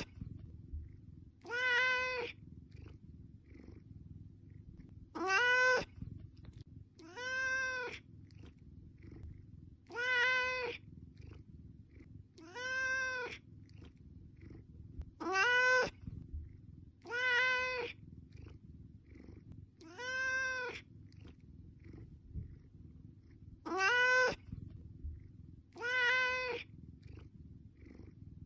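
Domestic cat meowing about ten times, short calls of about half a second each, every two to three seconds, each rising then falling in pitch. A faint low steady hum runs underneath.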